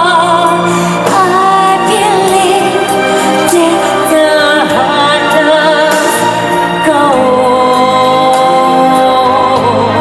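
A woman singing a pop song live over loud accompaniment, with a long held note that wavers with vibrato near the end.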